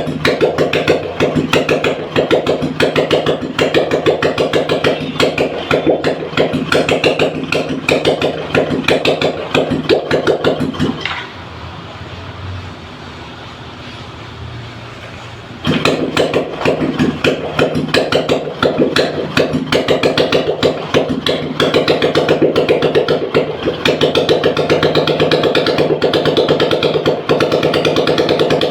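Royal Enfield Bullet's single-cylinder engine running with a fast, even beat. Near the middle the engine sound drops away for a few seconds and then comes back abruptly. In the last part it runs steadier and a little louder.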